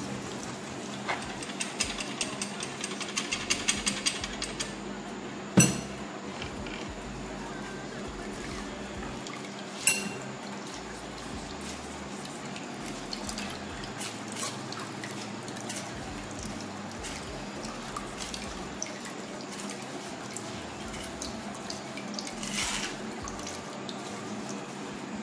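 Blended soaked-rice liquid being poured and strained through a mesh sieve into a bowl while a spoon stirs and scrapes the pulp in the sieve. A run of quick light clicks comes in the first few seconds, and two sharp knocks of utensils against the sieve and bowl come about five and ten seconds in.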